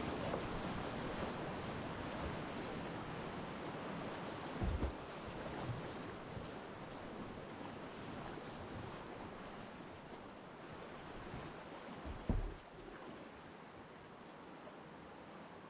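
River rapid rushing around a kayak, a steady roar of white water that slowly fades as the boat moves onto smoother flowing water. Two dull low thumps cut through it, about five seconds in and about twelve seconds in.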